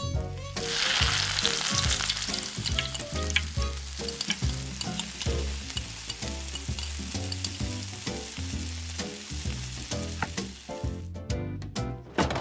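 Hot oil sizzling in a tiny metal pan, with diced onion and bell pepper frying in it, and scattered light clicks. The sizzle starts about half a second in, is loudest over the next couple of seconds, and fades toward the end.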